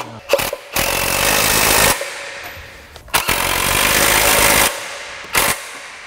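Cordless impact wrench running in two bursts of about a second and a half each, tightening bolts at the transmission crossmember, with a few short knocks around them.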